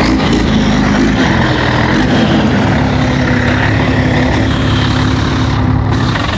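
Old Scania truck's diesel engine running steadily at low speed as the truck creeps forward over mud, a steady high whine riding over the engine note, the plane-like sound of this engine.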